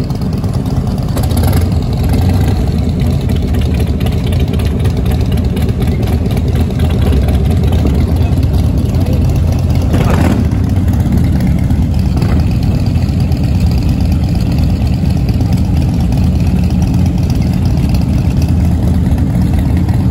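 Many large motorcycle engines idling together in a steady, loud low rumble, with a short sharper noise about ten seconds in.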